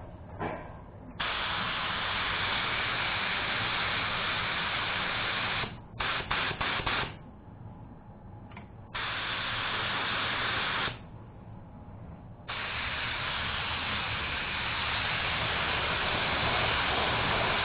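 Compressed-air paint spray gun hissing in trigger pulls that start and stop abruptly: a pull of about four and a half seconds, a few quick bursts, a two-second pull, then a long steady spray from past the middle.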